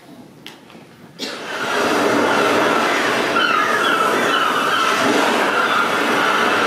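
After a few light taps, a loud train sound swells in about a second in and holds steady: the rushing rumble of a subway train with a wavering wheel squeal above it.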